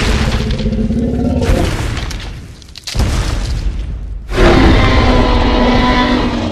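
Tyrannosaurus rex roar sound effect: a deep, rumbling roar that fades out about two and a half seconds in, followed by a second loud roar starting about four and a half seconds in.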